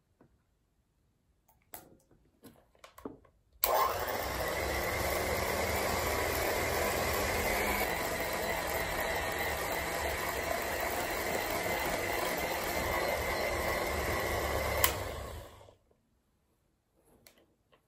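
Electric hand mixer switched on about three and a half seconds in, its beaters whipping cream and mascarpone in a glass bowl. It runs steadily for about twelve seconds, then stops. A few light clicks and knocks come before it starts.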